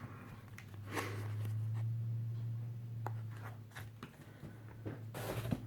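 Rustling and light clicks of bagged and boarded comic books being handled and set down, over a low steady hum that swells in the middle.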